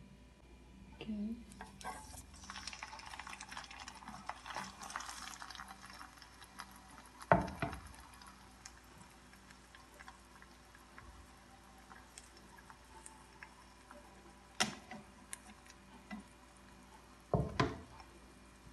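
Vegetable-egg nugget frying in shallow olive oil in a nonstick frying pan: a few seconds of crackling sizzle, then sharp knocks against the pan as the nuggets are handled. The loudest knock comes about seven seconds in, with a couple more near the end.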